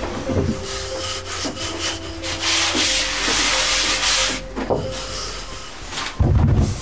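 Long wooden rolling pin rolling back and forth over a thin sheet of buckwheat soba dough on a wooden board: a steady rubbing, swishing sound that swells for a couple of seconds about halfway through. A low thump comes near the end.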